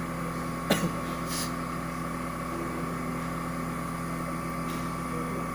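CNC TU 3A milling machine running with a steady motor whine, with a sharp click about three-quarters of a second in.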